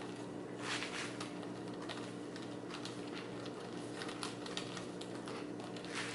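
Plastic twisty puzzle (a Rhombic Tuttminx) being handled, its pieces giving a few faint clicks and scrapes over a steady low hum.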